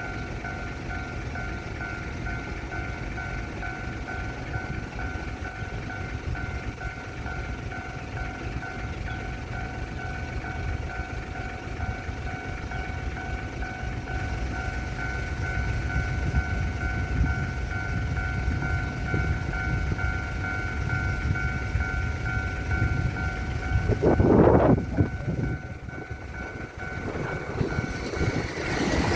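Level-crossing warning bell ringing in a steady repeated pattern, over heavy wind rumble on the microphone. A brief loud burst sounds about 24 seconds in, and the bell stops near the end.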